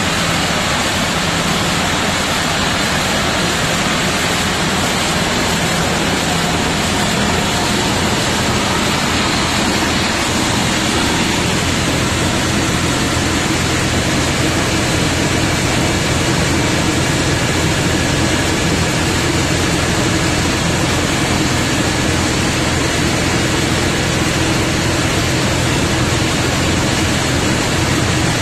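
Small engine-driven rice mill running: a loud, steady mechanical din from the engine and milling machinery, with a low hum that grows slightly stronger about halfway through.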